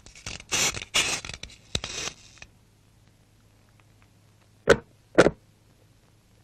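Cartoon sound effects: a run of rough scraping, rasping noises for about two seconds, then after a pause two sharp knocks about half a second apart.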